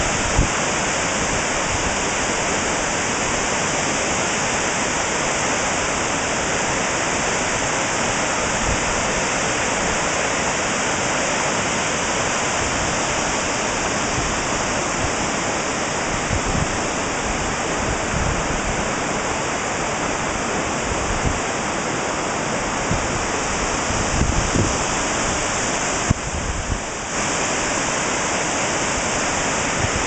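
Waterfall cascading down stepped rock ledges: a steady, unbroken rush of falling and splashing water.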